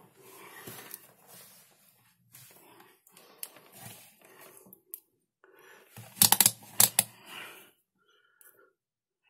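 Handling noise of multimeter test probes and leads being fitted to a laptop charger plug's wires: light scattered clicks and rustling, with a few sharp clicks about six seconds in as the probe tips meet the metal contacts.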